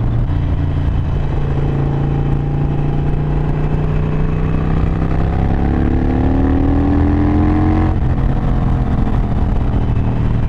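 Harley-Davidson Sportster 883's air-cooled V-twin running under way, its note slowly climbing as the bike accelerates in gear, then dropping abruptly about eight seconds in at a gear change and running on steadily.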